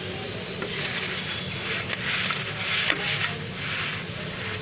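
Sabudana thalipeeth sizzling in ghee in a hot pan, a steady crackle, with a couple of short clicks about two and three seconds in.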